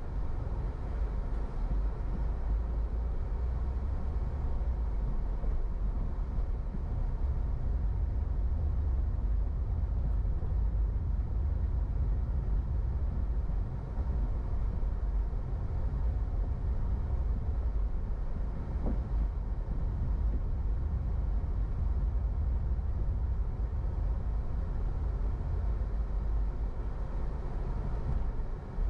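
A car driving on city streets: a steady low rumble of engine and road noise.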